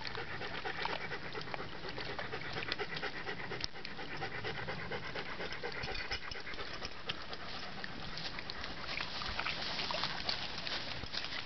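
Dogs panting hard on a hot day to cool down, with paws splashing and stepping through shallow stream water as many small sharp splashes.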